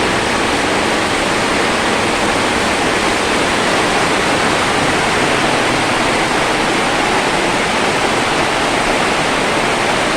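A steady, even rushing noise at a constant level, with no rhythm or separate sounds in it.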